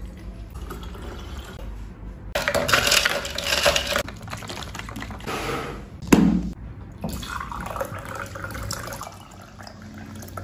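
Liquid being poured into a large plastic drinking bottle and into glasses, in a few separate pours, with a dull knock about six seconds in.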